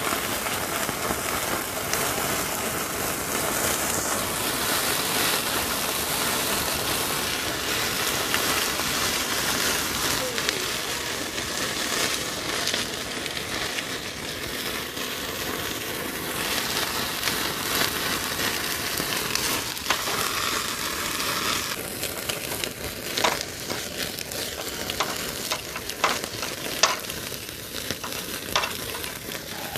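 Pork fat skewers sizzling over an open fire, dripping fat making the flames flare up. Dense, steady sizzle and fire noise, with several sharp pops and crackles in the last eight seconds or so.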